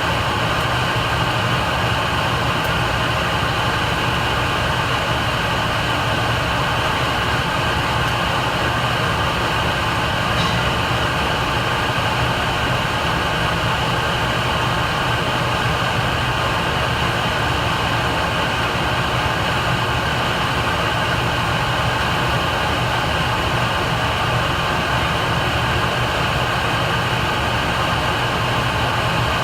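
Steady buzzing hiss of a TIG welding arc from a Miller Dynasty 200, with a low hum beneath.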